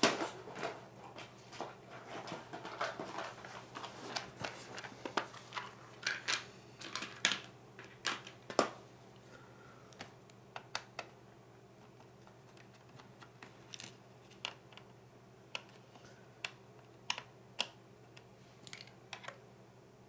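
Small screwdriver and screws clicking and tapping against a laptop's plastic bottom case as screws are worked out. The clicks come thick and fast for the first half, then sparse and scattered.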